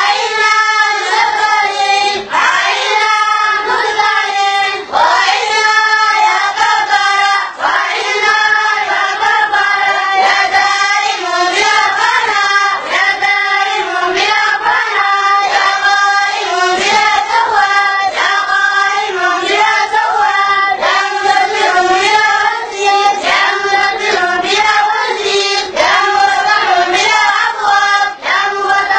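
A group of boys' voices chanting together in unison, a steady sung recitation that goes on without a break.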